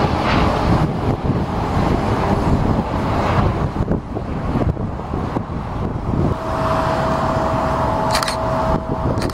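Loud outdoor airfield ambience: a dense, fluctuating rumble of wind on the microphone and distant aircraft engine noise. A faint steady whine comes in about six seconds in, and a couple of sharp clicks follow near the end.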